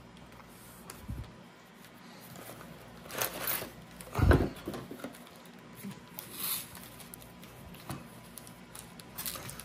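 Cardboard trading-card hobby box and its packs being handled and opened: soft scattered rustles and scrapes, with a single dull knock about four seconds in.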